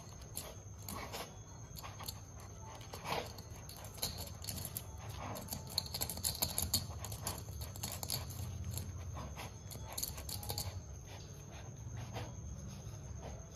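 Two German Shepherd puppies play-fighting muzzle to muzzle: low, grumbling dog sounds with a few brief higher yelps, and scattered short clicks of scuffling.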